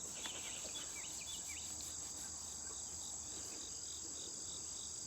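Steady high-pitched drone of crickets or similar insects, with a slower regular chirp pulsing about three times a second and a few short rising chirps near the start.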